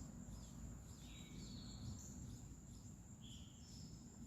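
Faint outdoor ambience: a few short bird chirps about a second in and again past three seconds, over a steady high insect drone and low rumble.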